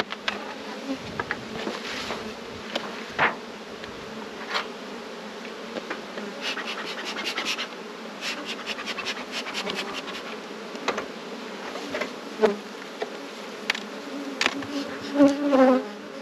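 Honey bees buzzing around opened hives in a steady hum, with scattered knocks, clicks and scrapes of wooden hive boxes and lids being handled. A louder buzz comes near the end.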